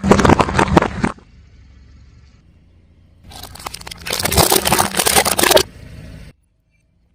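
A car tyre rolling over and crushing brittle, crunchy objects, with two bursts of dense crackling and snapping: a short one at the start and a longer one about three seconds in, over the low rumble of the car.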